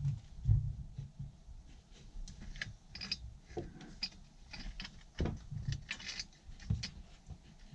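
Irregular metallic clinks, scrapes and knocks as twin-wall stove flue parts are handled and fitted together, with one heavier thump about half a second in and sharper knocks later.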